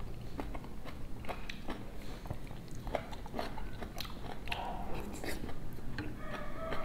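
A person chewing a mouthful of food close to the microphone, with many short irregular mouth clicks.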